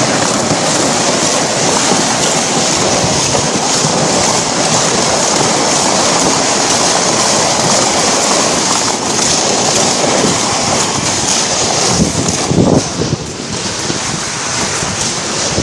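Steady loud rushing of wind on the microphone and water, as from a boat moving on a river, with a few louder low knocks about three-quarters of the way through.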